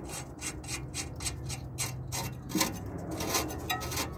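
Nut being spun by hand onto a rusty exhaust flange stud between the catalytic converter and the flex pipe: short metal-on-metal scraping strokes of the threads, about four a second.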